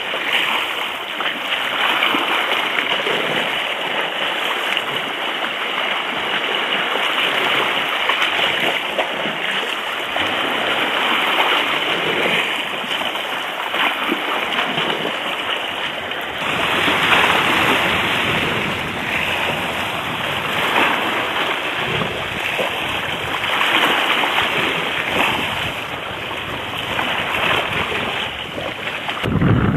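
Sea water splashing and washing around a sea kayak as it is rolled over and back upright, the noise swelling and easing every few seconds.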